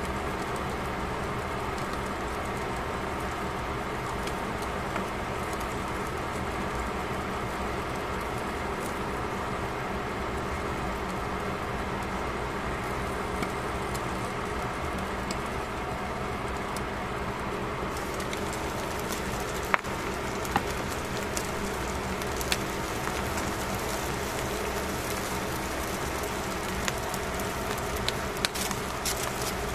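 Fish fillets frying on foil in a covered pan: a steady sizzle over a low hum, with scattered crackles and pops that grow more frequent in the last third. A few sharper clicks come near the end.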